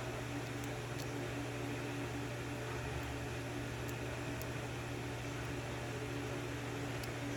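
Steady low hum with a hiss, like a fan or appliance running, and a few faint, light ticks of small metal lock parts being handled with a pick.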